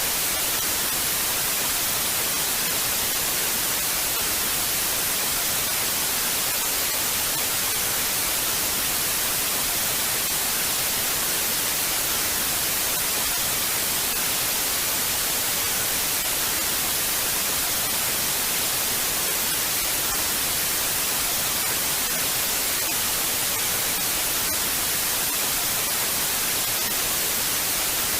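Television static: a steady, even hiss of white noise, strongest in the upper frequencies, holding level without change.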